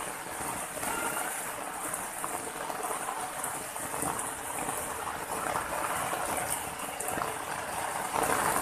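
Running water splashing steadily over rocks: an even, unbroken rush.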